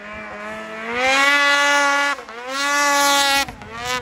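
Ski-Doo 600RS race snowmobile's two-stroke engine revving hard twice. Each time the pitch climbs, holds high for about a second, then drops off, and a shorter rev comes near the end.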